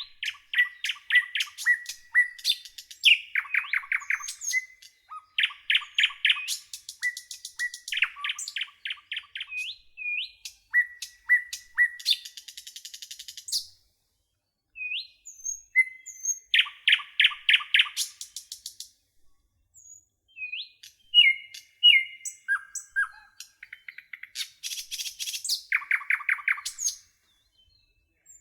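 Songbird singing a long, varied song of rapid trills and rattles mixed with short whistled chirps and slurred notes, in phrases broken by brief pauses.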